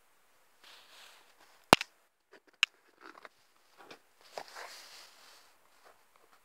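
Close handling noises: a loud sharp click about two seconds in, a smaller click a second later, then short knocks and rustling.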